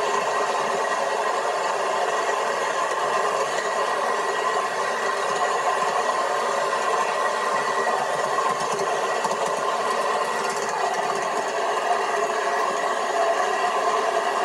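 Small-scale train with a yellow F-unit style diesel locomotive running along the track with a steady rattle and clatter, heard through a television speaker.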